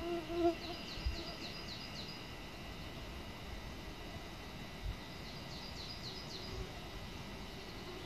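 A flying insect buzzes close by for about half a second at the start. A small songbird then sings two short phrases of quick, high, downward-sliding notes, about a second in and again about five seconds in.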